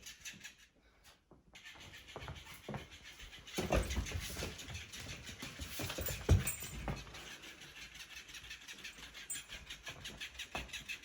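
Robotic flapping-fish cat toy flapping with a fast, even ticking several times a second, with a few soft thumps as a puppy pounces on it, the loudest about six seconds in.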